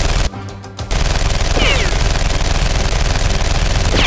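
Rapid automatic gunfire, a dense continuous rattle of shots with a brief pause about half a second in. A few short falling tones cut through it near two seconds in and again at the end.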